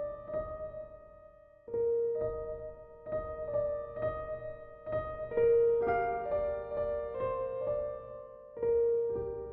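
Slow piano music: single held notes and soft chords that fade out, with a short lull about a second in before new notes come in.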